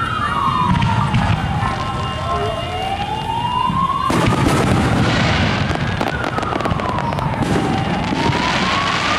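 Fireworks crackling and bursting, much denser from about four seconds in. Behind them a siren wails slowly up and down.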